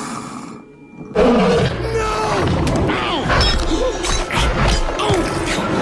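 Animated-film soundtrack: a soft hiss, then about a second in loud, dense orchestral music with many sliding tones.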